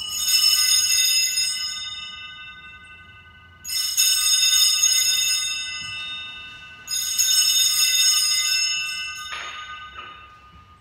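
Altar bells rung three times at the elevation of the consecrated host, each ring a bright, many-toned shimmer that fades over about three seconds.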